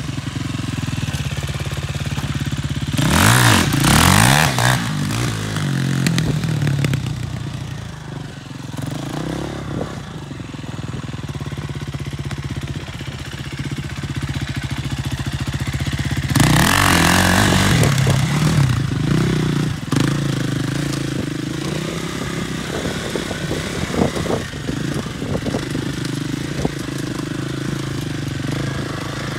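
Sport quad ATV engine running near idle, with two long bursts of hard revving, about three seconds in and again about sixteen seconds in, and shorter throttle blips between.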